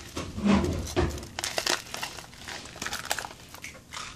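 A small foil drink-mix sachet crinkling and crackling in the hands as it is opened, in irregular rustles.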